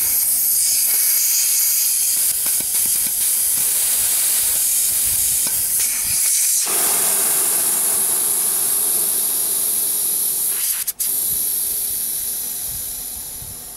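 Pressurised nitrogen holding charge hissing out of a new refrigeration compressor's opened service port. A loud, steady hiss that fades away over the last couple of seconds as the pressure bleeds down.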